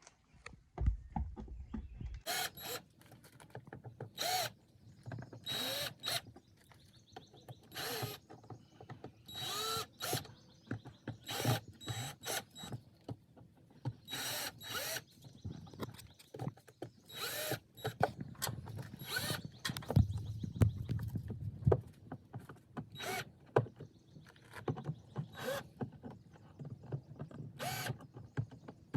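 Ridgid cordless drill/driver running in many short bursts, spinning up and winding down as it backs out square-drive screws, with quieter gaps between bursts.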